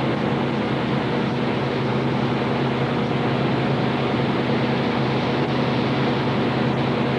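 A steady mechanical hum with a constant hiss over it, holding the same pitch throughout.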